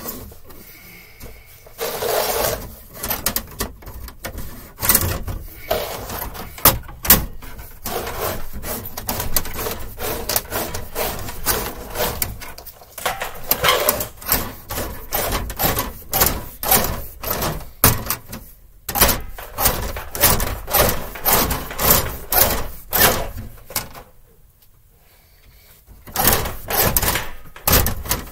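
Wire snake (fish tape) being pushed by hand through electrical conduit: repeated scraping and rattling strokes, at times about two a second, with a brief lull about 24 seconds in.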